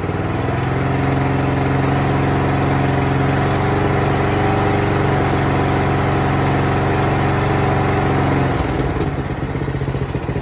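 Riding lawnmower's Briggs & Stratton PowerBuilt 15.5 hp engine running at a steady speed. About eight and a half seconds in, the steady note breaks off into a lower, rougher running sound.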